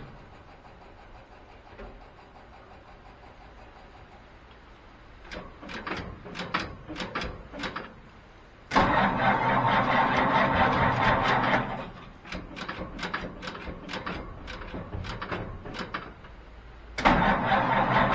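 1950 Ford F1's 226 cubic-inch flathead straight-six being cranked on the starter from cold, in two loud bursts of about three seconds, one about halfway through and one near the end. Between the bursts there are quieter spells of quick, irregular clicking.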